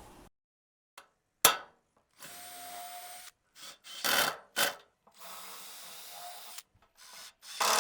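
Cordless power driver driving a screw through the gutter into a wooden divider, in two short runs of about a second and a half each, with short knocks and clatters between them and near the end.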